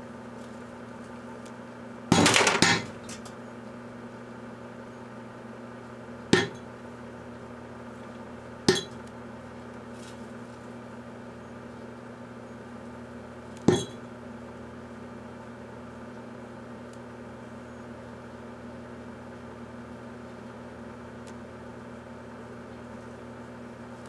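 Microwave oven running with a steady hum while watch batteries in a glass jar inside it burst: a quick rattle of several sharp cracks about two seconds in, then three single sharp pops a few seconds apart.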